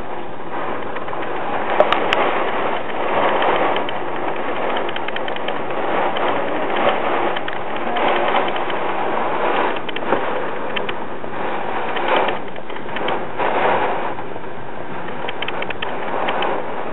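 Hurricane rain driven against a window, heard from indoors: a steady rush with many small taps on the glass, swelling and easing with the gusts.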